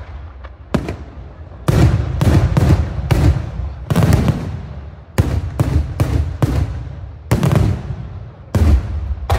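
Daylight aerial fireworks: a rapid, uneven volley of shells bursting overhead, about two or three sharp bangs a second, each trailing off, after a quieter first second or so.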